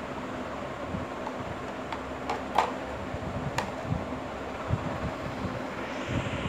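A few light plastic clicks and knocks about two to three and a half seconds in, as a blade insert of a plastic manual vegetable chipper is handled and set into its clear plastic container, over a steady hiss.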